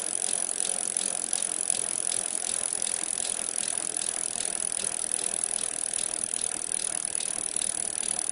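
Fast, dense mechanical clicking or rattling, steady and unbroken, with a hissy high edge.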